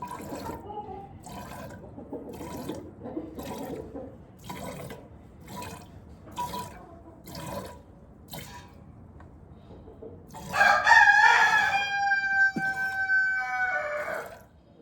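Squirts of goat milk hitting the pail during hand-milking, a short stroke about once a second. About ten seconds in, a rooster crows loudly for three or four seconds, the loudest sound.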